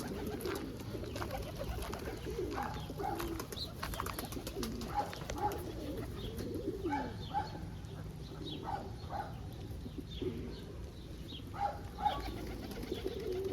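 Domestic pigeons cooing, several birds overlapping in repeated low rolling coos. Short, higher-pitched calls come through every second or so.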